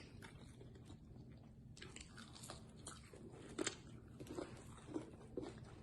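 Close-up crunching and chewing of deep-fried frog legs with a crunchy crushed hot Cheeto coating, a string of faint, irregular crisp crackles that grows busier about two seconds in.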